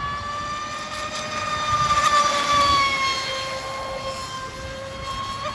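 Traxxas Spartan RC speedboat's brushless motor (4082 size, 1650kv, on a 6S battery) running at speed with a high-pitched whine. The whine grows louder about two seconds in as the boat runs close, then its pitch falls slightly.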